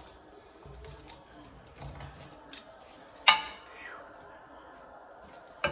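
Metal kitchen tongs clacking against each other and a metal tray while tearing apart roast pork shoulder, with one sharp clack about three seconds in and another near the end.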